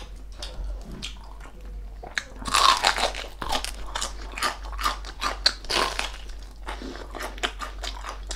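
Close-miked crunching as a person bites and chews the crackling skin of deep-fried crispy pork knuckle. The crunching is sparse at first, then comes in quick, loud, dense strokes from about two and a half seconds in.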